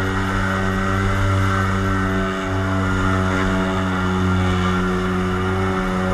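Small watercraft's engine running steadily at high speed, its pitch holding level after just having risen.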